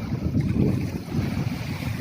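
Strong wind buffeting the microphone, a gusty low rumble that swells and dips.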